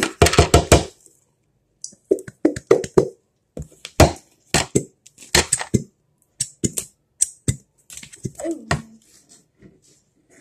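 Slime being squeezed, poked and stretched by hand, giving runs of quick wet clicks and pops in short bursts.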